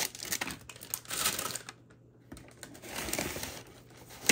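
Packing paper and plastic-wrapped frozen packages rustling and crinkling in bursts as hands dig through a cardboard shipping box, with a sharp knock near the end.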